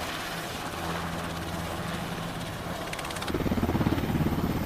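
Helicopter sound: a steady engine and rotor noise, turning into a rapid rhythmic chop of the rotor blades about three seconds in.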